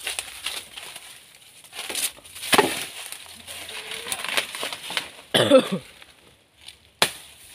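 Dry, dead banana leaves and leaf sheaths crackling and rustling as they are grabbed and pulled off the trunk, with a few sharp cracks.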